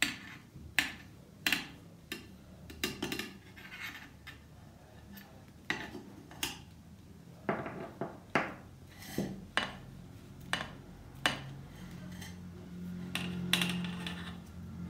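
Irregular sharp clicks and light knocks of hard plastic as an old push switch is twisted and unscrewed by hand from a MotorScrubber handle's switch housing.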